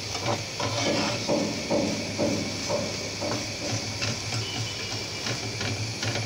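Steel spatula scraping and knocking against a pan, about twice a second, as vegetables are stir-fried, over a steady sizzle of frying.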